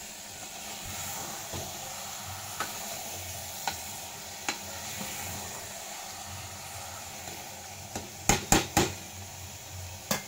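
Potatoes and peas frying in masala in an aluminium pressure cooker, a steady sizzle while a steel ladle stirs and scrapes the pot with light clicks. About eight seconds in the ladle knocks sharply against the pot three times in quick succession, and once more near the end.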